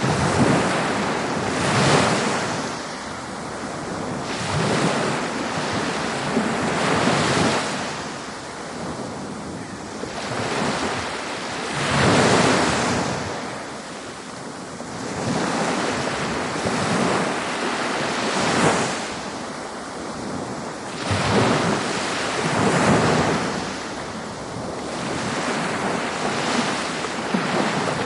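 Ocean waves breaking and washing up a beach, swelling and falling back every few seconds, with wind noise on the microphone.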